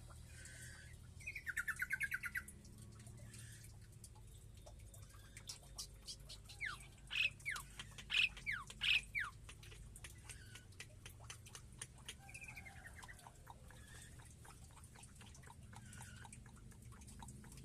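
Cage birds calling: a quick trill of about ten notes about a second in, then a run of loud, sharp whistles sweeping downward between about six and nine seconds, with faint ticking throughout.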